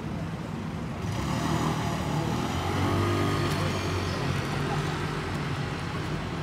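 City street traffic: a passing motor vehicle's engine grows louder from about a second in, is loudest near the middle, and fades away over a steady low traffic rumble.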